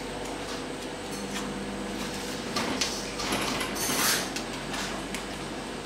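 Wire whisk and wooden spoon working softened butter and caster sugar in a stainless-steel bowl: soft scraping and swishing against the metal, with a few louder strokes a little past the middle.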